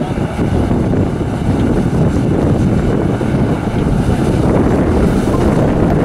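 Claas Lexion 530 combine harvester running steadily, a continuous low rumble with wind buffeting the microphone.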